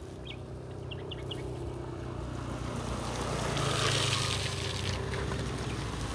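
A motor vehicle's engine running steadily as it travels, with a rush of wind that builds to a peak about four seconds in.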